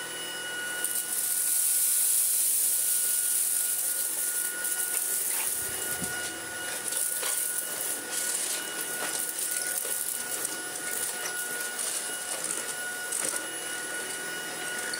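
Tineco A10 Hero cordless stick vacuum running with a steady high whine and airy hiss as its floor head is pushed across a hard floor, picking up spread debris in one pass. The motor is switched off at the very end and its whine falls away.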